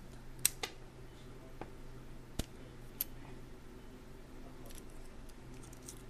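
Small metal clicks and taps from handling a steel padlock and its key. There are a few sharp clicks in the first three seconds, then lighter ticking over a steady low hum.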